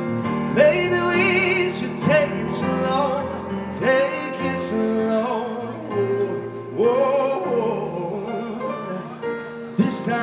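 Live male vocal into a handheld microphone, held notes with vibrato and wordless melismatic runs, over sustained stage-piano chords.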